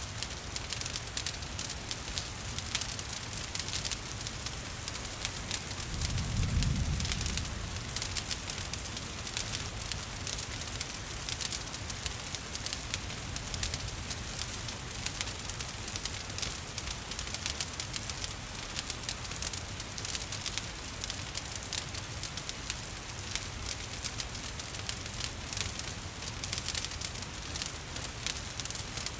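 Wood fire crackling and popping in a fireplace over a steady hiss of rain, with a brief low rumble swelling about six seconds in.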